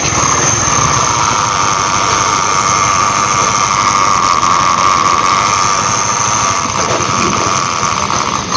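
Small single-cylinder motorcycle engine running steadily, with a steady high whine over the engine note.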